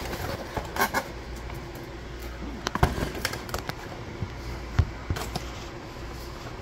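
A few separate light knocks and clicks of jars and fuel containers being handled, over a steady low hum.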